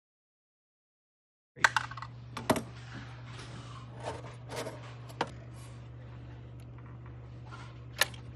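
Small metal clicks and scrapes of screws and the transceiver's sheet-metal top cover being handled as the cover is unscrewed and lifted off. The sounds start about a second and a half in, with sharp clicks at about 2 s, 2.5 s and 5 s in and again near the end, over a steady low hum.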